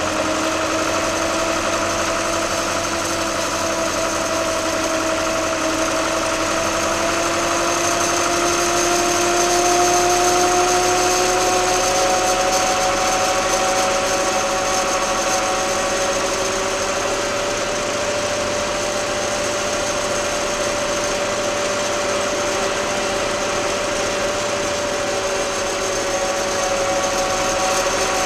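Case 885XL tractor's diesel engine running steadily while the tractor drives along the road, heard close to the exhaust stack. Its pitch creeps up in the first dozen seconds, then shifts and holds steady as the revs change.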